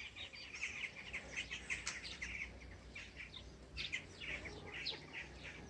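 Faint songbirds chirping: many short, high notes scattered throughout.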